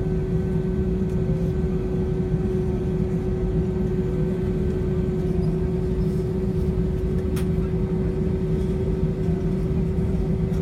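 Airliner cabin noise: a steady low rumble of the jet engines and airflow, with a steady hum over it.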